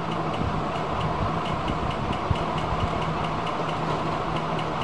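Steady mechanical hum and rumble, with a faint regular ticking running through it.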